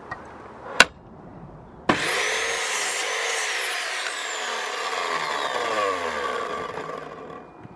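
Electric mitre saw cutting a wooden batten: after a sharp click, the motor starts suddenly about two seconds in and the blade cuts through the wood. The motor then winds down with a slowly falling whine over the last few seconds.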